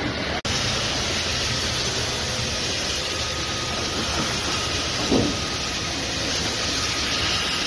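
Fire hose nozzle spraying a jet of water: a steady loud hiss over a low rumble. A faint steady high tone joins about three seconds in, and a brief louder sound comes about five seconds in.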